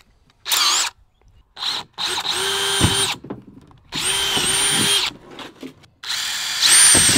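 Cordless drill with a twist bit boring into thin PVC pipe, run in bursts: two quick blips, then three runs of about a second each with a steady motor whine, stopping between them.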